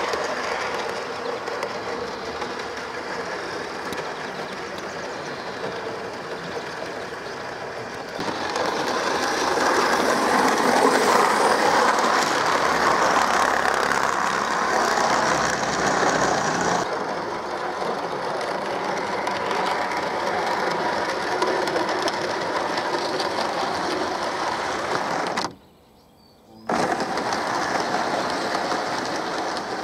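Model Class 37 train running along the model railway track: a steady rolling rattle of small wheels and motor. It grows louder about eight seconds in as the coaches pass close, then drops away, and cuts out briefly near the end.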